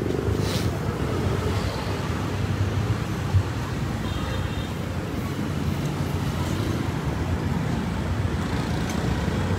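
Steady low rumble of running vehicle engines and traffic, with a single sharp click a little over three seconds in.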